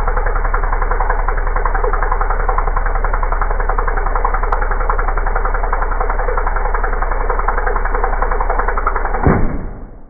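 Bagged vacuum cleaner running steadily with its nozzle sucking against a rubber balloon. Near the end the balloon pops with one sharp bang, and the running sound then dies away.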